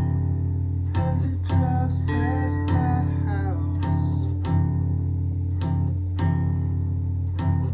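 Music: a guitar striking chords about once a second over a steady low note.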